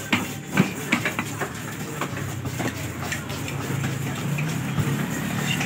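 Large knife chopping and cutting leather jacket fish on a wooden chopping block, sharp knocks at irregular intervals, most of them in the first half. From about halfway a low engine hum rises underneath and becomes the loudest sound.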